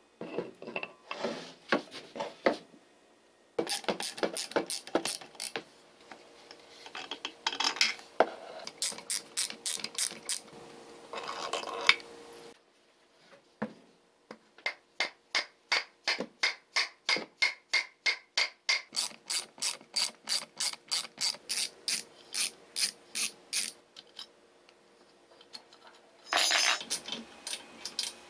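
Long runs of rapid, evenly spaced mechanical clicking, about four clicks a second, broken by short pauses, from hand tools working on a metal drill housing during disassembly.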